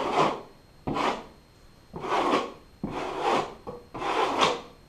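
Steel drywall knife scraped across a textured drywall patch in repeated strokes, about one a second, each starting sharply and fading.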